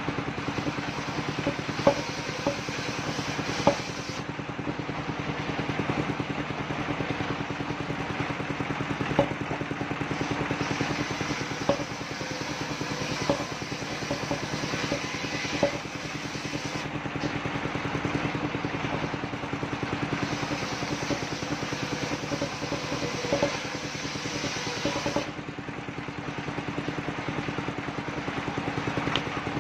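Engine of a portable circular sawmill running steadily, with a sharp knock now and then.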